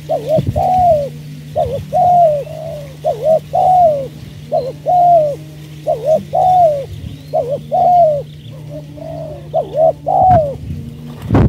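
Spotted dove cooing over and over: phrases of one or two short notes ending in a longer, swooping coo, repeated every second or two. A faint steady low hum lies underneath.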